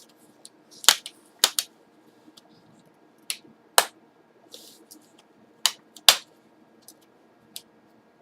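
Plastic snap clips of a laptop screen bezel popping loose one after another as the bezel is pried off around its edge: about eight sharp clicks at irregular intervals, with a brief scrape about halfway through.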